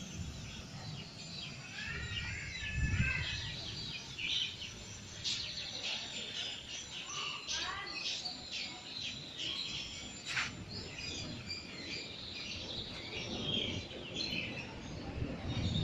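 Birds chirping and calling in many short, repeated notes, over a low background rumble, with a single sharp click about ten seconds in.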